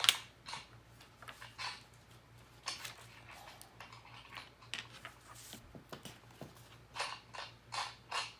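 Plastic LEGO pieces clicking and clattering as they are handled and snapped together: irregular sharp clicks, with the sharpest right at the start and a quicker run of clicks near the end.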